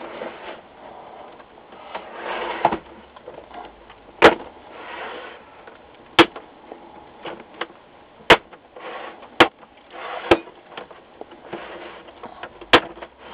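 Plastic snap-fit catches of an LCD monitor's bezel and case popping loose as the case is flexed and twisted apart: sharp clicks every second or two, with plastic scraping between them.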